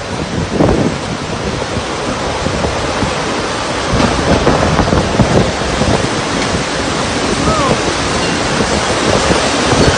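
Tornado winds and heavy rain in a loud, steady rush, buffeting the phone's microphone, growing a little louder about halfway through.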